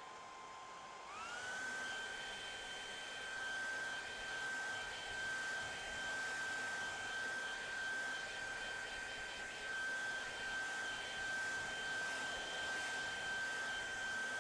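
Hair dryer running on a freshly painted watercolour to dry it, a rushing blow with a steady whine that rises in pitch about a second in as the motor speeds up, then holds level.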